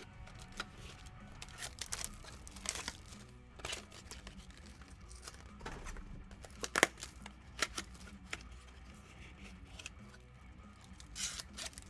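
Scattered crinkling and tearing of plastic and foil packaging, with light taps and knocks of trading-card boxes and packs being handled, one sharper knock a little over halfway through. Faint background music runs underneath.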